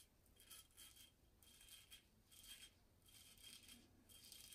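Freshly sharpened Hults Bruk axe blade shaving a lathered beard: a series of about seven short, faint scraping strokes as the edge cuts through the whiskers.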